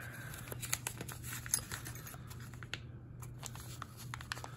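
Light rustling of packing material and small scattered clicks as a wrapped packet of keys is opened by hand.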